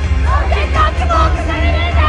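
Pop song played loud through a concert sound system, with a heavy, steady bass and a sung voice coming in about half a second in.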